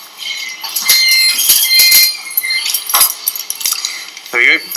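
Steel surgical instruments (forceps and artery clips) clinking and clattering against each other, with short metallic rings; the clatter is busiest in the first two seconds, then single clicks follow.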